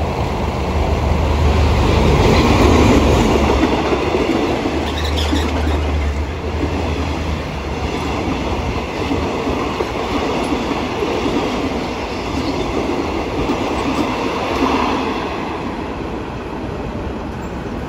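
Diesel locomotive hauling a passenger train passes close by on the main line. Its engine hum is loudest in the first several seconds. Then comes the continuous rumble and clatter of the coaches' wheels on the rails, fading as the last coach goes away.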